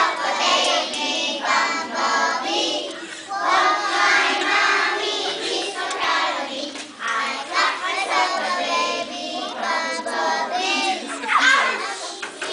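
A group of young children singing a song together in unison, phrase after phrase with short breaks between.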